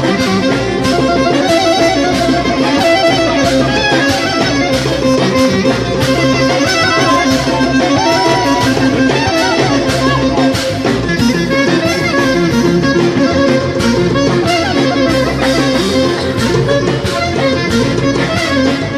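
Live band of clarinet, bouzouki and hand percussion playing a tune together, the clarinet's held and gliding notes over plucked bouzouki and a steady beat.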